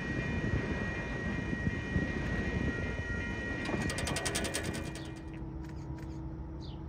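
Freight train tank cars rolling past, wheels rumbling on the rails with steady high tones over the rumble. A little over halfway, about a second of rapid clicking, then the sound drops to a quieter steady hum.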